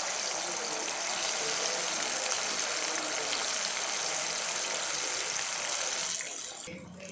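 Taro root slices frying in hot oil in a shallow pan: a loud, steady sizzle that drops away and cuts off shortly before the end.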